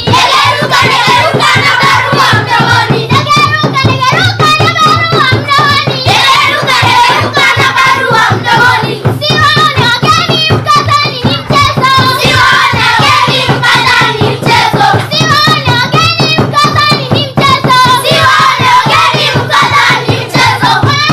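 A group of children singing a song together while clapping their hands in a steady rhythm.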